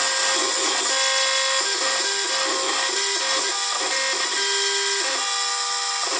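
LPKF ProtoMat 91S PCB milling machine cutting copper: its spindle, running at 30,000 RPM with a 0.5 mm carbide two-flute bit, gives a steady high whine, under which the axis drives hum in short tones that change pitch every fraction of a second as the head steps from one cut to the next.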